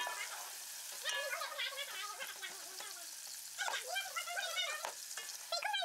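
Sliced onions sizzling and crackling in hot oil and ghee, stirred with a wooden spoon. A faint, wavering voice-like sound runs underneath.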